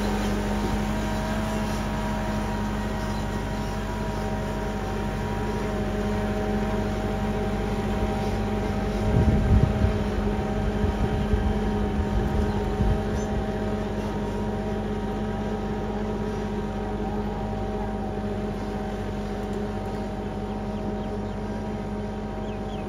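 Tractor diesel engine running steadily under load as it drags a tined cultivator through flooded mud, growing slightly fainter as it pulls away. A short stretch of low thumps comes near the middle.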